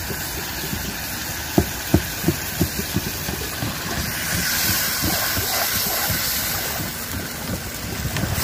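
Knocks on the cooking pot as rice bran is added to a hilsa curry: about half a dozen sharp knocks, getting weaker, in under two seconds, with a few fainter ones near the end. A hiss swells in the middle, over a steady background drone.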